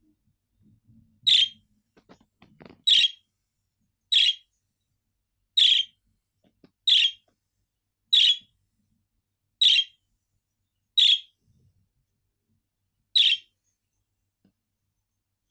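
Budgerigar giving short, sharp contact chirps, nine in all, repeated evenly about every second and a half.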